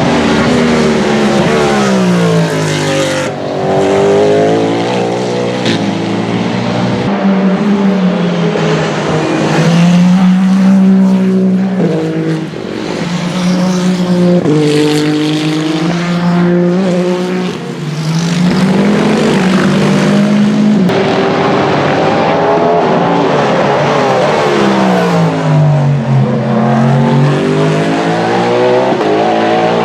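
WEC Hypercar-class prototype race cars running past at racing speed, their engine notes falling in pitch as they slow and rising again as they accelerate through the gears. At times two engine notes overlap.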